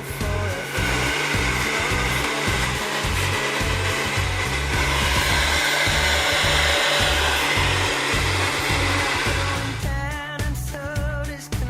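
A Trina salon-type hair dryer running, a steady rush of air with a high motor whine, getting louder about halfway through and stopping near the end. Background music with a steady beat plays under it.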